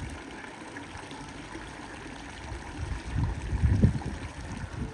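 Water running and trickling steadily, with a few louder low rumbles about three to four seconds in.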